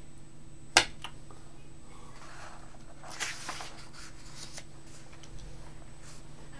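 Handling noise over a steady low electrical hum: one sharp click just under a second in, then a short soft rustle like paper being moved around the three-second mark, with a few small clicks.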